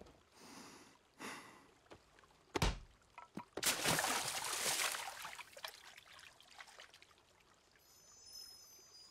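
Cartoon water sound effects: a few soft swishes, a sharp thud about two and a half seconds in, then a splash of water about a second later that rushes and fades into a trickle. Faint high ringing tones come in near the end.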